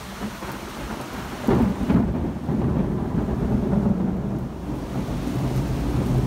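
Thunder during a heavy tropical electrical storm: a sudden crack about a second and a half in, then a long low rumble rolling on. Rain hisses underneath.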